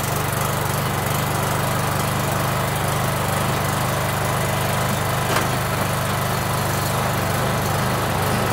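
Kohler Command 16.5 OHV engine on a riding lawn mower running steadily, just after starting. No throttle or governor linkage is hooked up, so it runs at whatever speed it settles at.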